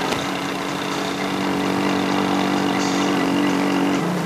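Small step-through motorbike engine running at a steady speed, its note cutting off suddenly about four seconds in.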